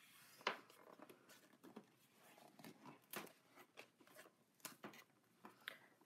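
Faint crackling and clicking of a thick glossy art book's binding and pages as a hand presses it open flat to crack the spine, with the sharpest crack about half a second in and a few smaller ones after.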